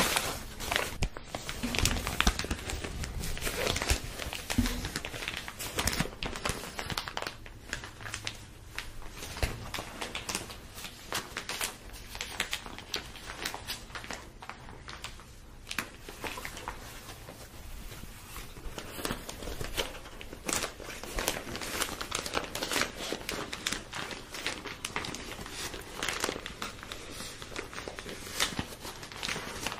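Black plastic bag being crinkled and rustled close to the microphone: a dense, irregular run of sharp crackles.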